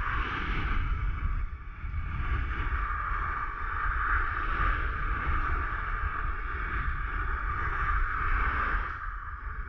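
Quad bike engine running while riding over sand, mixed with wind buffeting the microphone; it eases off near the end.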